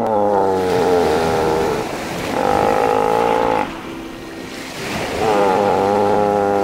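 Harbor seal pup calling: three long, wavering cries, with the wash of surf behind.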